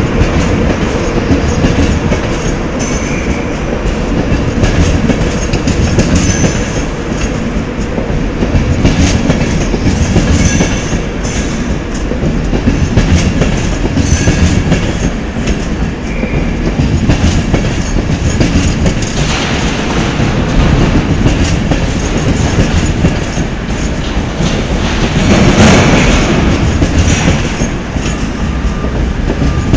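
Passenger train coaches rolling slowly past, their wheels clattering over rail joints in a steady rumble. Short high wheel squeals come now and then, and the rumble swells for a couple of seconds near the end.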